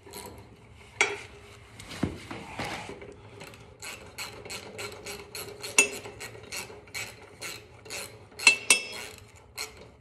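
Socket ratchet clicking in quick short strokes, about three clicks a second, as a mower blade's bolt is worked loose, with a few sharper metal clinks from the tool on the blade.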